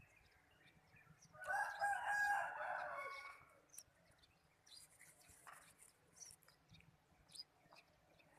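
A rooster crows once, for nearly two seconds, starting about a second and a half in. Brief small-bird chirps are scattered around it.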